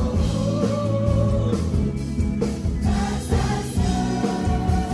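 Live band music with singing: long held sung notes over bass and drums, heard from within the concert crowd.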